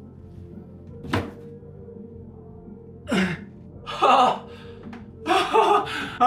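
Background music with a steady held tone. A dull thunk comes about a second in, followed by several short, louder sounds from about three seconds on.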